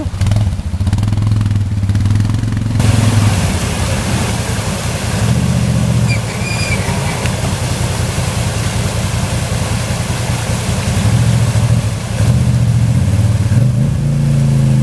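Off-road vehicle engine revving up and down repeatedly. A steady rushing noise joins in about three seconds in.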